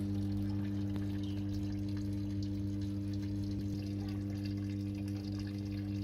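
Samsung WA80H4000 top-loading washing machine filling: water pours from the inlet through the detergent drawer into the tub, over a steady low hum.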